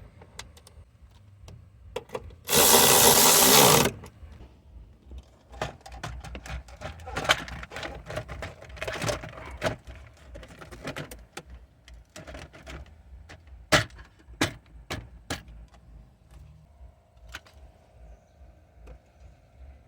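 A power tool runs for about a second and a half, most likely driving a 10 mm bolt. Then come scattered clicks and knocks of tools and parts being handled.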